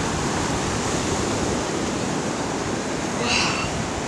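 Ocean surf washing steadily on the beach, with wind rumbling on the microphone. A brief high-pitched sound cuts in about three seconds in.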